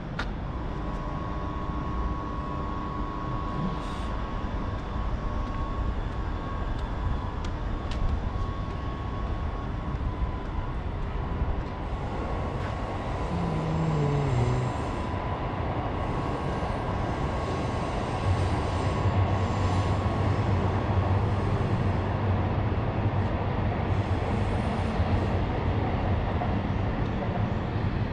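Steady urban vehicle noise, with a faint steady tone early on and a short falling whine about halfway through; a heavier low rumble from a passing vehicle sets in about two-thirds of the way through and holds.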